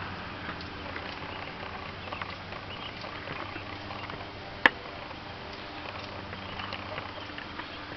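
A stick being worked into place by hand: faint rustling and small ticks, then one sharp snap or knock a little past halfway, over a steady low hum.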